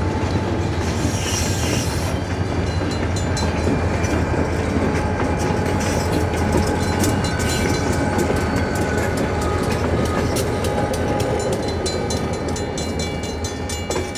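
Freight train rolling past over a road crossing: boxcar wheels clacking steadily over the rails, then two diesel locomotives rumbling by at the rear of the train. The sound eases slightly near the end as the train clears the crossing.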